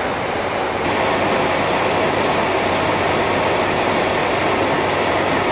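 Steady rushing airflow noise on a Boeing 747-8 flight deck at cruise, with a faint low hum underneath, growing slightly louder about a second in.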